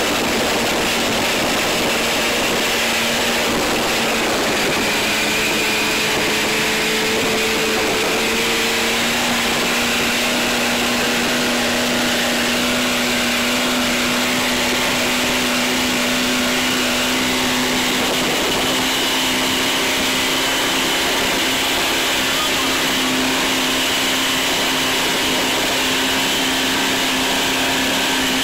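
26-foot American Offshore powerboat running at speed: a steady engine drone whose pitch creeps slightly higher, under a loud rush of wind and water.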